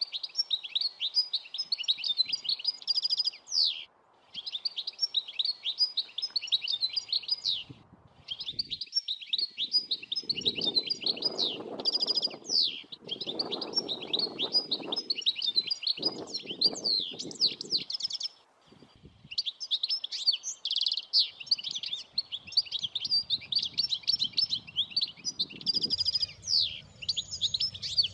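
European goldfinch song: long phrases of rapid, tinkling twittering, broken by a few short pauses.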